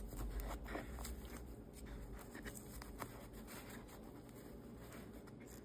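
Faint handling noise: soft rubbing and a few light taps, with a low rumble over the first second or so that then fades.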